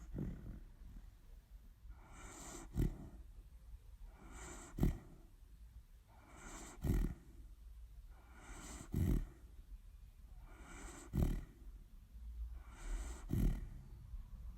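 Dog snoring in its sleep: six snores about two seconds apart, each a drawn-out breath that ends in a short, sharp peak.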